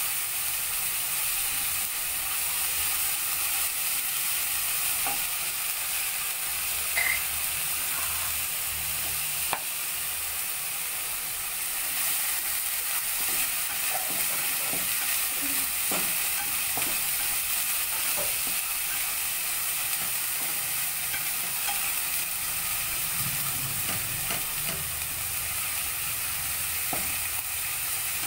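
Ginger-garlic-onion masala paste sizzling steadily as it fries in oil in a kadai, stirred with a spatula that scrapes and taps the pan now and then. The masala is being fried down until the oil separates.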